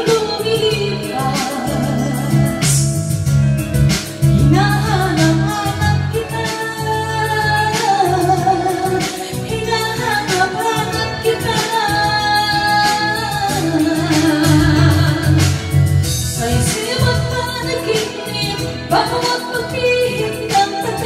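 Karaoke: a woman singing into a microphone over a backing track with a steady beat, both amplified through the room's sound system.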